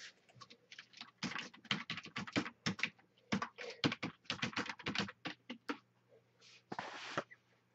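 Typing on a computer keyboard: irregular runs of quick keystrokes with short pauses, and a half-second swish about seven seconds in.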